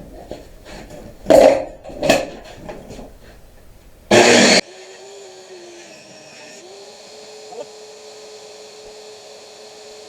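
Several loud knocks and a short loud burst in the first half, then an electric saw motor running steadily, its pitch dipping a little twice as the blade labours through a slow rip cut in pallet wood.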